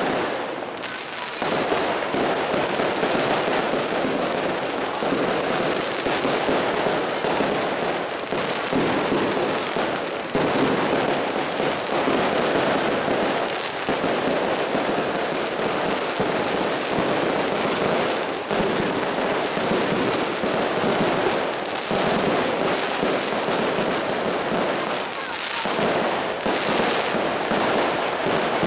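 Fireworks going off in a dense, continuous crackle of rapid bangs, with a few short lulls.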